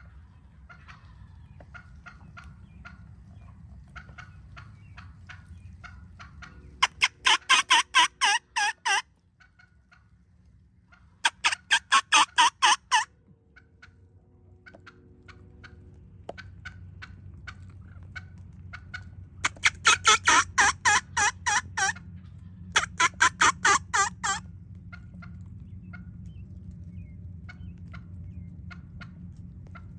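Hen turkey yelping: four loud runs of about eight to ten rapid yelps each, with softer scattered calls in between.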